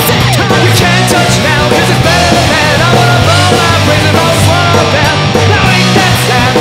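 Loud rock song with electric guitars, bass guitar and drums playing together without a break.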